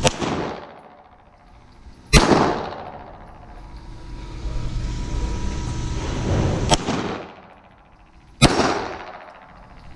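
Semi-automatic pistol shots on an indoor range, each followed by a long echo off the concrete walls. One shot comes right at the start, a loud one about two seconds in, a sharper, quieter crack near seven seconds, and another loud shot near eight and a half seconds.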